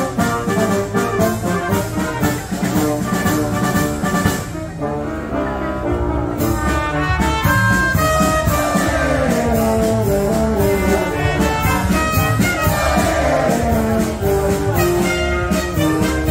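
Wind band of brass, saxophones and drum kit playing a Spanish pasodoble, with a steady drum beat under the horns. The drums drop out for about two seconds around four seconds in, then come back.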